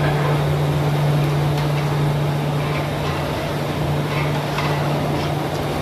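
Steady roar of a commercial kitchen, with a constant low hum running under it and a few faint ticks.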